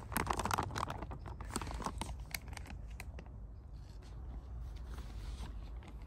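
A ration meal pouch being torn open across the top and crinkled in the hands. It gives a dense run of crackles in the first two seconds, then lighter crinkling as the pouch is handled.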